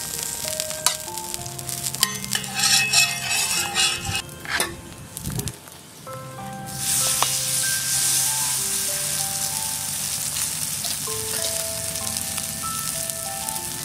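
Egg and Maggi noodle omelette mixture being stirred with a few clinks, then a steady sizzle that starts suddenly about seven seconds in as the mixture goes into the hot pan.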